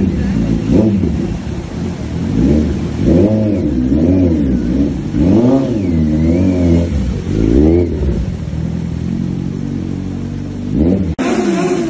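Motorcycle engine revved again and again, its pitch climbing and dropping with each twist of the throttle. About 11 seconds in, the sound changes abruptly to a steadier engine note.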